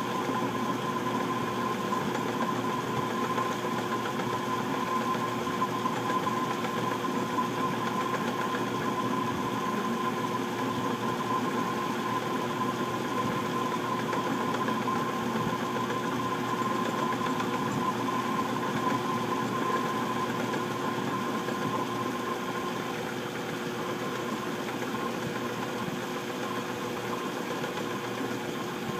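Small metal lathe running steadily while a taper cut is fed along a spoon bit with the compound slide, mixed with a shop fan. A steady whine in the hum fades out about two thirds of the way through.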